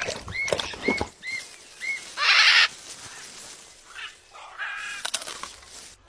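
Blue-and-gold macaw calling: four short arched notes about half a second apart, then a loud harsh squawk a little after two seconds in, and a rougher call near the end.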